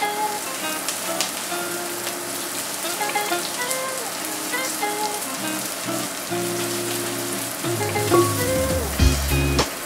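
Chopped onions sizzling in oil in a stainless steel pan: a steady dense crackle. Upbeat background music plays along, its bass growing stronger in the second half.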